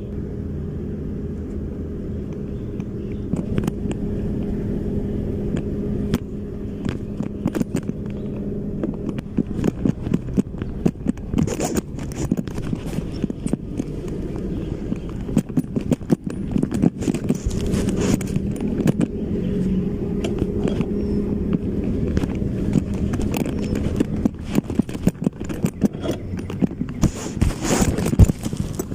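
Yamaha R25's 250 cc parallel-twin engine running at a steady, nearly constant speed, with many short sharp clicks and crackles over it.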